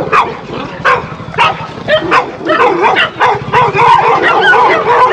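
Several dogs barking, yipping and whining in quick succession, many short wavering calls overlapping, during a tense standoff between a pit bull and a group of Labradors.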